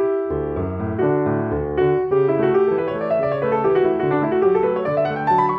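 Background music: a solo piano piece with a run of notes climbing in pitch toward the end.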